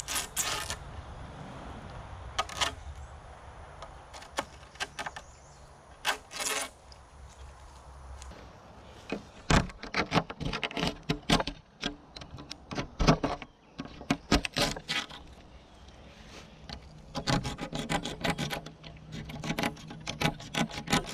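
Utility knife cutting and scraping away the excess fiberglass cloth along the edge of a cured, epoxy-coated rudder: a scattering of short crisp cuts at first, then dense runs of quick scraping strokes from about halfway through.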